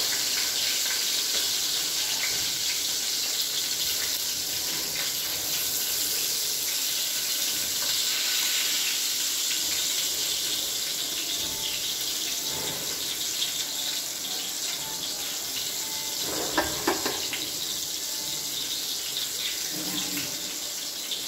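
Round eggplant slices shallow-frying in hot oil in a kadai: a steady sizzling hiss. A few sharp metal clinks of cookware come about two-thirds of the way through.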